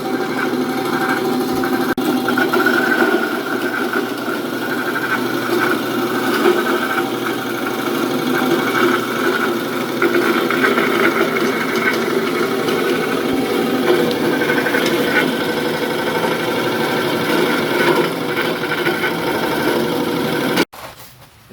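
Clove-slicing machine running steadily, a loud continuous mechanical drone; it cuts off abruptly near the end.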